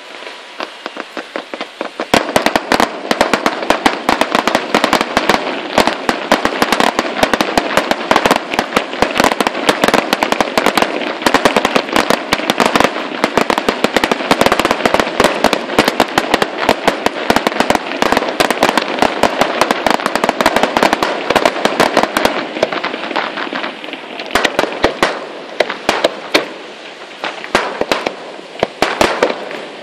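Fireworks display: aerial shells bursting in a dense, rapid stream of cracks and bangs. A softer crackle fills the first couple of seconds, and the bangs thin out to more separate reports near the end.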